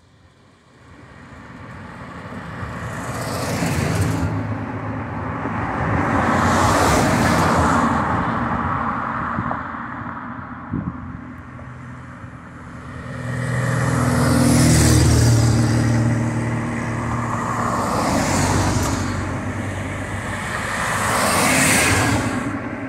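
A line of cars driving past one after another, about five pass-bys, each engine and tyre noise swelling up and fading away. The loudest, with the deepest engine note, comes near the middle.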